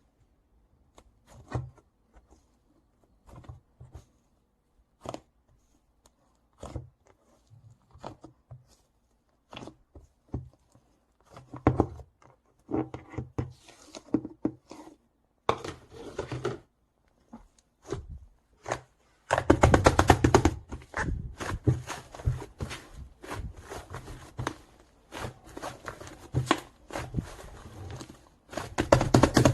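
White slime being played with by hand: sticky clicks and squelches as it is poked and pressed, a second or so apart at first, then closer together, turning about twenty seconds in into a dense run of loud crackling and popping as it is worked fast.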